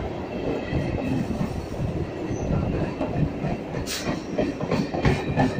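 Hyderabad MMTS electric local trains running side by side, heard from an open coach doorway: a steady rumble of wheels on the rails with a faint high wheel squeal over the first few seconds, and a sharp metallic clank about four seconds in, with another near the end.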